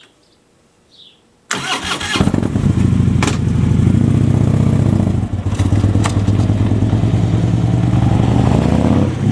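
Harley-Davidson Street Glide's Twin Cam 103 V-twin starting up about one and a half seconds in, cranking briefly, then catching and running loud and steady at idle.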